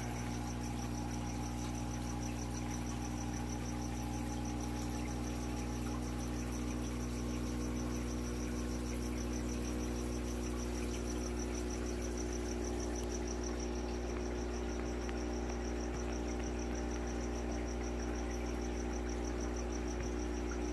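Steady hum of aquarium equipment running, the tank's sump pump and filter, with a high, rapidly pulsing chirp over it.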